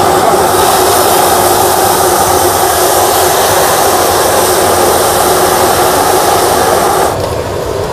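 Hot oil sizzling in a large wok as tofu and fish deep-fry over a gas burner, a loud, steady hiss with a rushing burner noise beneath it. The sizzle cuts off about seven seconds in.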